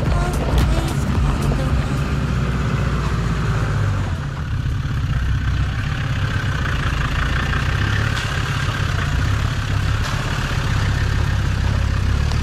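Land Rover Td5 five-cylinder turbodiesel engine running in a Series 1 Land Rover crawling over a muddy off-road track, a steady low drone with no sharp revving.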